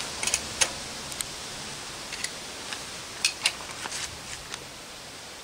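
A spanner tightening the axle nuts of an electric-bike front hub motor: scattered short metallic clicks and ticks, with two close together about three seconds in.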